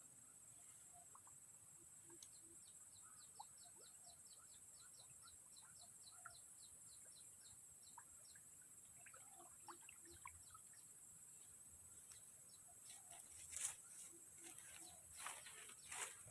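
Faint outdoor ambience: a bird gives a run of quick, evenly spaced high chirps, about three or four a second, over a steady high insect hiss. A few louder rustles and knocks come near the end.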